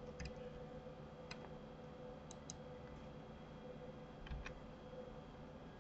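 Faint, scattered clicks of a computer mouse and keyboard, some coming in quick pairs, over a faint steady hum.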